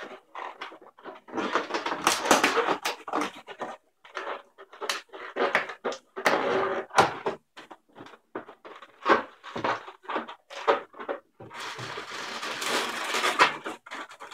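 Latex balloons rubbing and squeaking against each other as a small yellow round balloon is pressed into the centre of a white twisted-balloon flower, in irregular stretches with short pauses.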